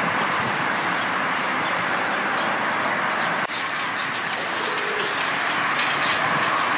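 Steady noise of road traffic, with short high bird chirps over it. The sound breaks off and resumes a little past halfway.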